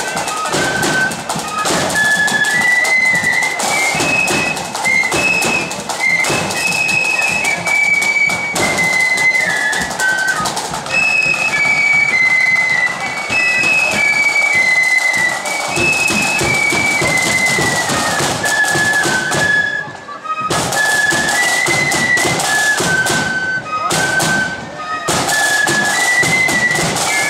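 Blood-and-thunder marching flute band playing a tune: flutes carry a high melody over a steady beat of bass drum and side drums.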